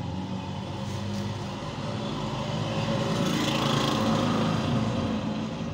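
A small engine running steadily, growing louder about halfway through and easing off again near the end.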